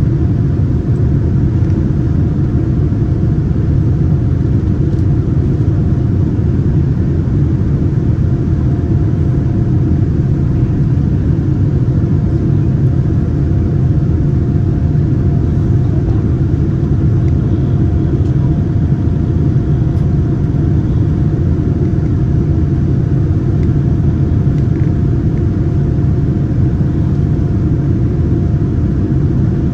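Steady low cabin noise of a Boeing 787 Dreamliner, engine and airflow noise heard from inside the cabin, with a faint steady hum over it.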